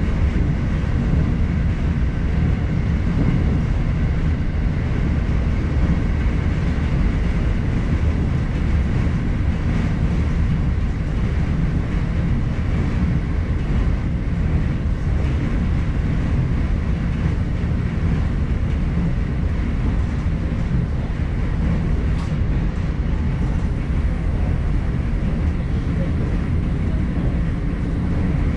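Rapid Airport electric multiple-unit train running steadily, heard from inside the front car: a constant rumble of wheels on rails with a faint steady high tone above it, and one brief click about three-quarters of the way through.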